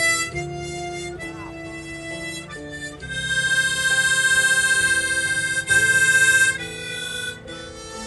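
Background music led by a harmonica playing a slow melody of held notes, with one long loud note held for about three and a half seconds in the middle.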